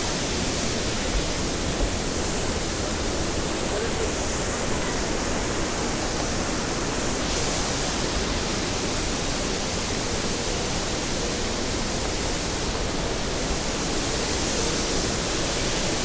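Steady rushing of a waterfall and its stream, an even unbroken hiss that holds at one level throughout.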